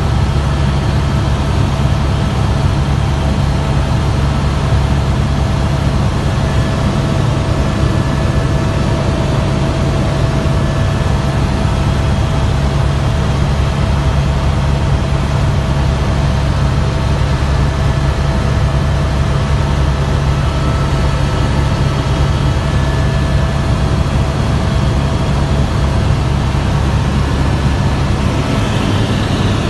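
Helicopter in flight heard from inside the cabin: a loud, steady low drone of engine and rotor, with a few thin, steady whining tones above it.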